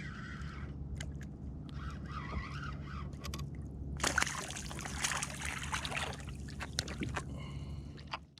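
Water sloshing and splashing close by, louder and busier from about halfway through, with scattered small knocks and clicks.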